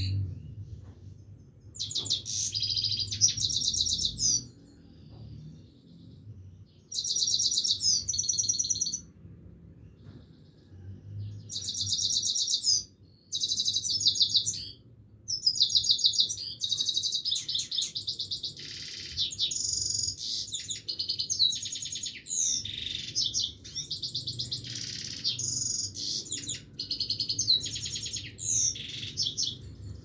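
Himalayan goldfinch singing: fast twittering, trilled phrases in bursts of a few seconds with short pauses, becoming almost continuous from about halfway through.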